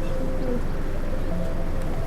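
Strong wind buffeting the microphone, a steady low rumble, with faint held tones behind it.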